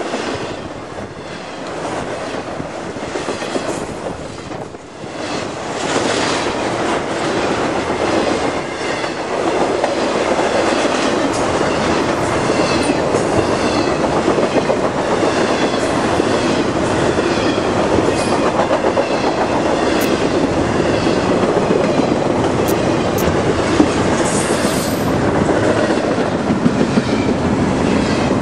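Intermodal freight train cars (trailers and double-stack containers) rolling past close by, a steady rumble of wheels on rail with regularly spaced wheel clicks. It grows louder about six seconds in.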